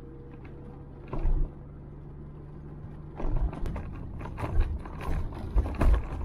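Noise from a moving vehicle: a steady low hum with a dull thump about a second in. From about three seconds in come irregular rattles and knocks with low thumps as the vehicle rolls over a block-paved bridge deck.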